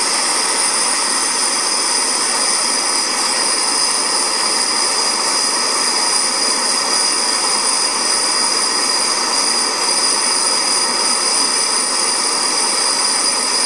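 Small high-speed drill running steadily with a high-pitched whine, boring the lead core out of a steel-jacketed soft point bullet.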